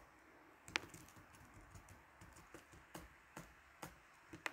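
Faint, irregular clicking of a computer keyboard as code is typed, with a sharper keystroke about three quarters of a second in and another near the end.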